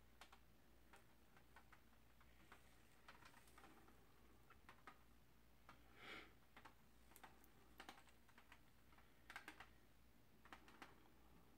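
Near silence with faint, scattered clicks and taps and a brief soft rub about six seconds in: gloved hands handling a wet acrylic pour canvas over its drip tray and wiping its edge with a paper towel.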